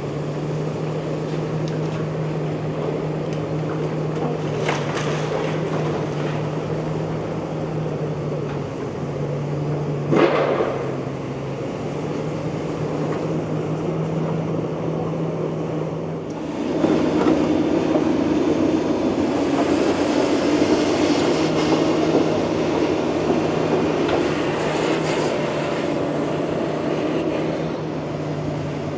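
Komatsu PC360LC hydraulic excavator's diesel engine running steadily while it demolishes a brick shop front, with sharp knocks of debris about five and ten seconds in. From about sixteen seconds in the noise grows louder and rougher as the demolition goes on.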